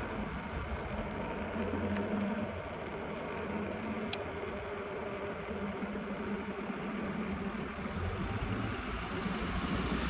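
Steady wind and road noise from riding a bicycle, with a faint low hum underneath.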